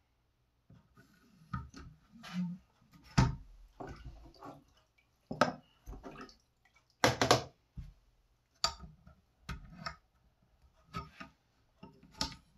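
A hand dipping into a plastic tub of water beside an Edge Pro knife-sharpening jig: water sloshing and dripping, mixed with irregular clicks and knocks of the jig and stone. The loudest knocks come in a short cluster about seven seconds in.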